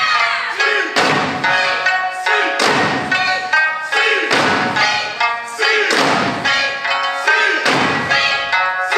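Live Okinawan Eisa music: a sanshin-accompanied folk melody with the dancers' large barrel drums (ōdaiko) and small hand drums (paranku) struck together in unison, heavy drum strokes ringing out every second or so.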